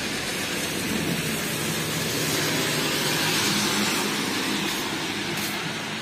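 Traffic on a rain-soaked street: a vehicle drives past, its tyres hissing on the wet road over a low engine hum. The hiss swells about three to four seconds in, then fades.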